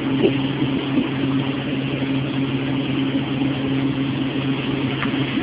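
Bacon sizzling in a frying pan, a steady hiss with a few faint crackles, over a constant low hum.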